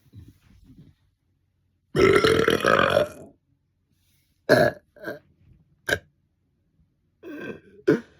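Deliberate belching on command: one long, loud belch lasting over a second about two seconds in, followed by several short belches.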